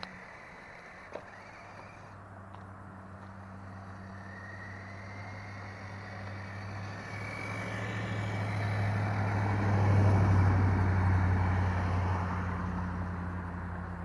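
A road vehicle approaching and passing: the sound swells gradually to its loudest about ten seconds in, then fades.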